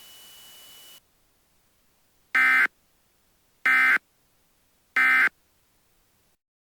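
Three short, identical bursts of Emergency Alert System digital data (the warbling two-tone data signal), each about a third of a second long and about 1.3 seconds apart. This is the End of Message code that closes an EAS alert.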